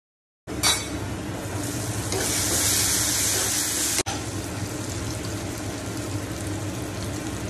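Vegetables sizzling as they are stir-fried in a kadai, with a spoon striking the pan once near the start. The hiss grows louder for a couple of seconds in the middle, breaks off briefly about four seconds in, then carries on at a steadier level.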